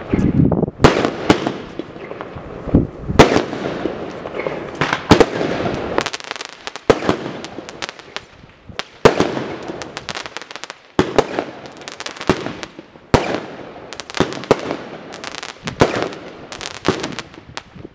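Witte Vuurwerk 'Spring Fairyland' firework going off shot after shot. A sharp bang comes roughly once a second, each followed by a short trailing hiss and crackle of the bursting stars.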